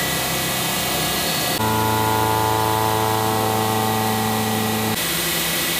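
Factory machinery running steadily: a constant hum with a hiss over it. The hum changes abruptly about a second and a half in and again near the end.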